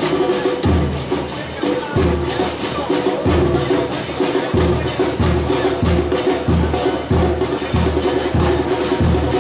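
A supporters' drum band playing in the stands: bass drums pound a steady beat about twice a second, with quick clattering snare-like strokes between the beats.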